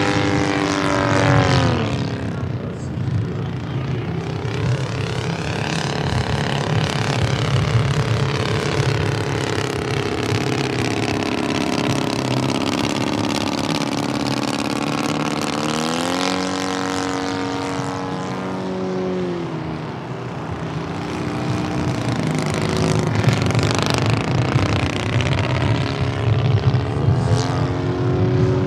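Combustion engine of a radio-controlled Fokker D.V scale biplane running in flight. Its pitch falls about a second in and again around seventeen seconds in, and rises near the end.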